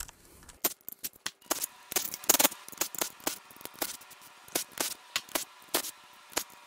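Sharp, irregular metallic clicks and clinks of a ratchet and other hand tools being worked on a bolt in the engine block.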